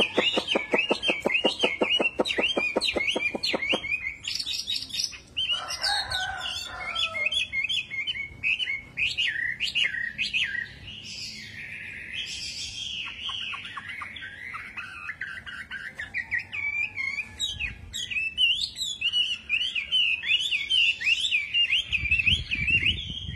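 Chinese hwamei (wambi) singing continuously: a fast run of evenly repeated notes, about eight a second for the first few seconds, then a long, varied stream of whistled, gliding phrases.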